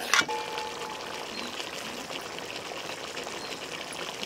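Thick chickpea gravy (chole masala) boiling in a steel pot, a steady bubbling fizz. A short clink comes right at the start, with a faint ring just after it.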